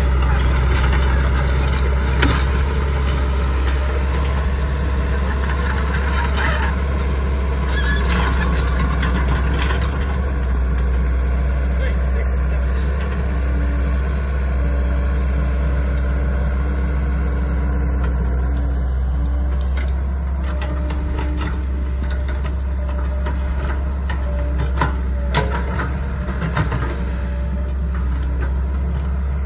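Caterpillar E120B hydraulic excavator's diesel engine running steadily as the excavator digs mud, with a few short knocks and clanks.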